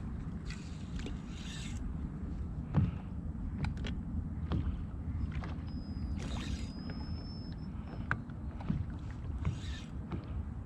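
Steady low rumble of wind and water around a small fishing boat, with scattered knocks and thumps of handling in the boat, the loudest about three seconds in. There are a few short hissing bursts, and a thin high tone for about a second and a half past the middle.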